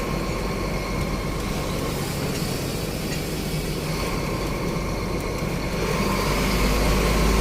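Truck engine running while the truck moves slowly, heard from inside the cab: a steady low rumble that grows a little louder near the end.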